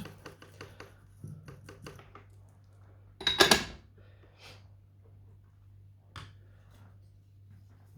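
Soldering tools being handled on a workbench: scattered small clicks and taps, with one louder clatter about three seconds in, over a steady low hum.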